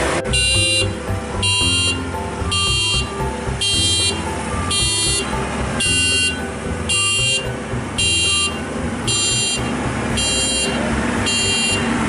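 Maxxi Bimo 102 combine harvester's reversing alarm: a loud electronic beep repeating about once a second, over the steady running of the machine's engine.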